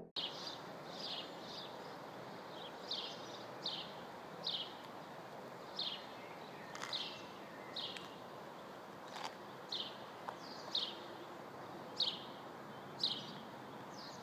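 Songbird repeating a short, high, falling chirp at irregular intervals of about a second, over a faint steady outdoor hiss.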